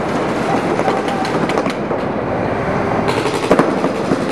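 Paintball markers firing rapid strings of shots, a dense rattle of pops that grows sharper about three seconds in.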